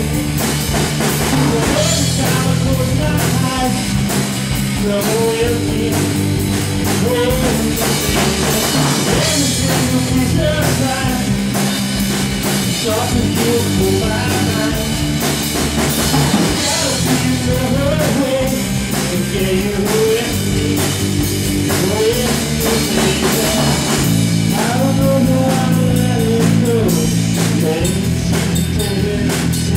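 A rock band playing: a drum kit keeping a steady beat under sustained bass notes, with guitar and a wavering melodic line on top.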